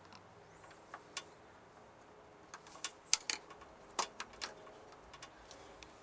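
Scattered light clicks and taps, irregular and most of them bunched in the middle of the stretch, over a faint steady background hum.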